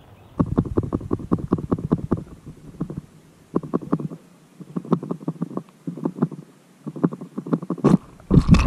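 Muffled underwater sound from a GoPro in its waterproof housing on the pond bottom: bursts of rapid clicking and crackling come and go. Near the end a loud rushing surge of water noise, as the bass takes the grub and is hooked.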